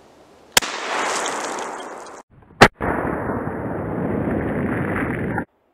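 Double-barrel .410 shotgun firing 000 buckshot into a gallon jug of water: a sharp report about half a second in and a much louder one about two seconds later. Each is followed by a steady hiss, the second cutting off abruptly near the end.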